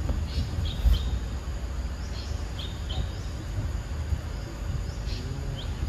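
A steady high insect drone, with scattered short high chirps and a low rumble on the microphone beneath.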